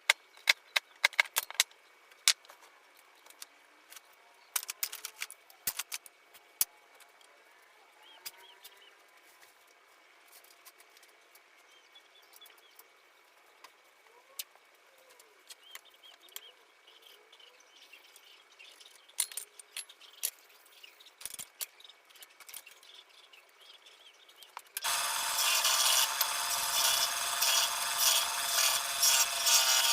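Sped-up workshop sound of wooden shutter parts being handled and fitted: scattered clicks and knocks of wood. About 25 seconds in, a loud, steady scraping noise of a tool working the wood starts suddenly.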